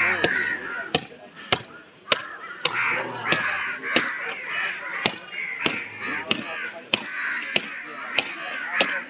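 Crows cawing repeatedly over a steady run of sharp chopping knocks, a little under two a second, the sound of a blade striking meat and bone.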